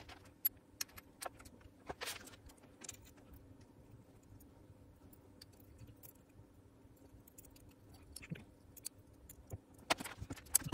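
Scattered light metallic clicks and clinks of small gearbox parts from a Makita DDF486 cordless drill, handled and tapped with a metal pick as the gearbox is reassembled, with a denser run of clicks near the end.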